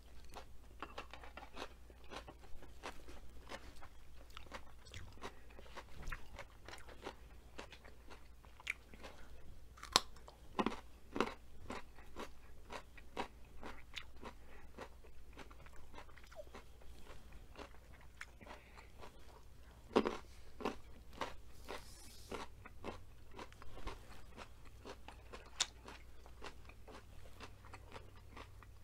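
Close-up eating sounds: a steady run of crisp crunches and chewing from breaded fried asparagus and raw carrot, with a few louder bites about a third of the way in and again past the middle.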